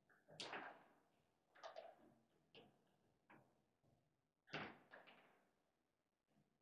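Foosball table in play: the ball is struck by the rod figures and knocks against the table. About seven sharp clacks come at uneven intervals, the loudest about four and a half seconds in.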